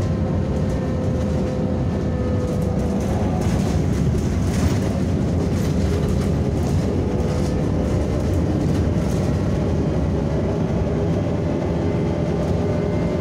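Inside a Belkommunmash BKM 321 trolleybus under way: a steady rumble of tyres and body, with a faint whine from the electric drive holding near one pitch and drifting slightly, and occasional light clicks and rattles.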